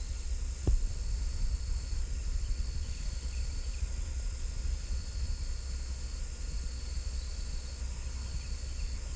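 Crickets chirping in a steady, high, unbroken chorus, over a constant low rumble and one short knock less than a second in.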